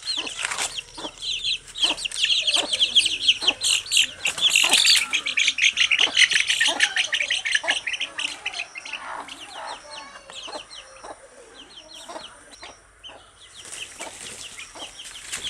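A brood of chicks peeping rapidly and high-pitched, with a mother hen clucking lower. The peeping is dense and loud for roughly the first seven seconds, then thins out to scattered peeps.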